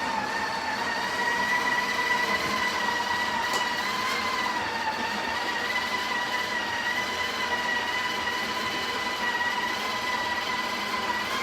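Breville Barista Express built-in conical burr grinder running steadily with a motor whine, grinding a fresh dose of coffee beans at a coarser setting.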